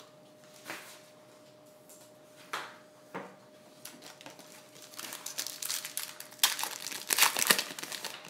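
A trading-card pack's foil wrapper being torn open and crinkled by hand. The crinkling starts about five seconds in and is loudest near the end, after a few light clicks of the pack being handled.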